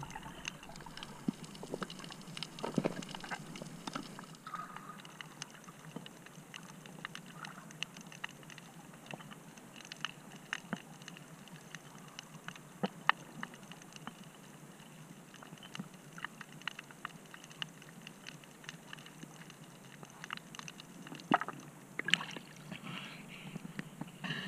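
Water heard through an underwater camera: a steady hiss with scattered sharp clicks and crackles, and splashing near the end as the camera comes up through the surface.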